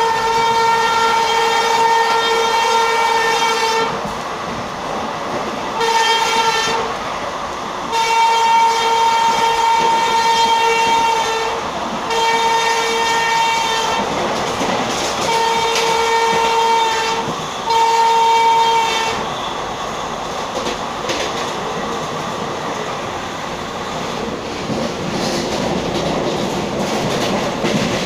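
WAP-7 electric locomotive's horn sounding in six blasts of varying length, the longest about three and a half seconds, over the steady rumble and clatter of a train running at speed, heard through an open coach door. The horn stops about 19 seconds in, leaving only the wheel and rushing-air noise.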